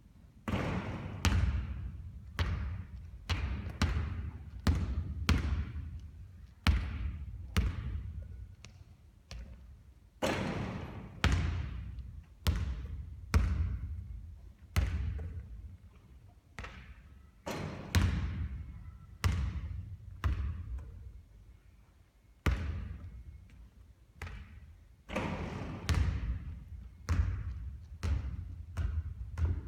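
A basketball bouncing and thudding on a court during three-point shooting practice, around twenty impacts at irregular intervals, each trailing off after the hit.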